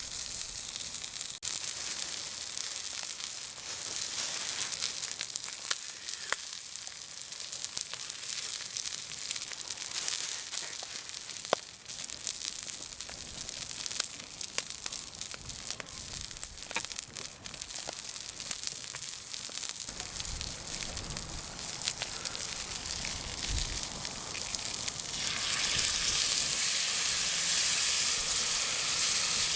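Hamburger steak sizzling on an iron griddle plate over a wood fire, a steady hiss with scattered pops and crackles. About 25 seconds in, the sizzling gets louder.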